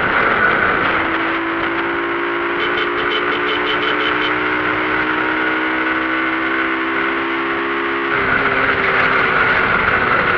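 Motorcycle engine running steadily, its note shifting slightly lower about eight seconds in. A short run of quick ticking, about five a second, comes around three seconds in.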